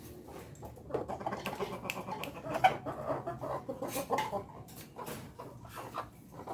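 Free-range village chickens clucking in short, broken calls, with many quick clicks and taps among them.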